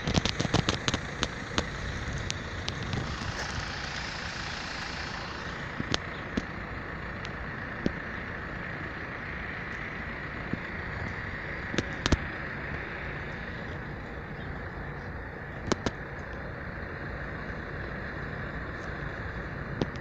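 Steady road traffic noise from cars and vans passing on the road beside the tracks, with scattered sharp clicks, many in the first two seconds and then single ones every few seconds.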